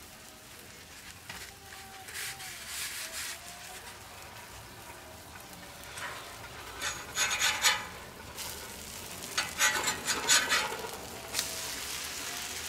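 Metal spatula scraping on a steel flat-top griddle twice, a few seconds apart, as two thin pancakes are flipped over, with frying sizzle under it. The sizzle grows steadier and louder near the end, once the wet sides are down on the hot surface.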